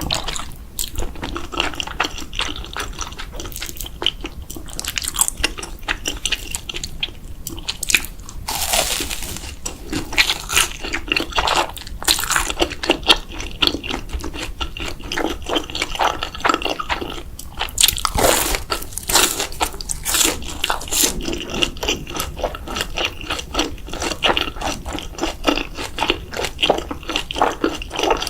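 Close-miked eating sounds: a person chewing wet, crunchy food with smacking mouth noises, and longer slurps about 9 seconds in and around 18 seconds in, typical of ramen noodles being slurped.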